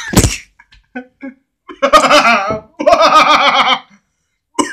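A man laughing hard: a sharp burst at the start, a few short gasps, then two long wavering laughs about two and three seconds in.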